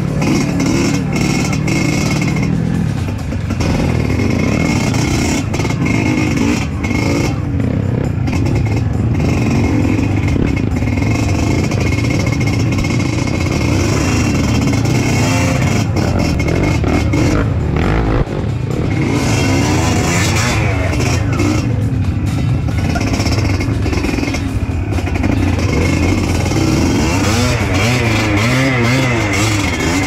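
Trail motorcycle engine running continuously, its pitch rising and falling with the throttle.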